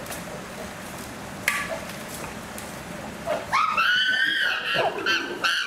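Chimpanzees screaming: loud, high-pitched calls that rise and fall in pitch and break off and start again, beginning about halfway through over a quiet background. A single sharp click comes about a second and a half in.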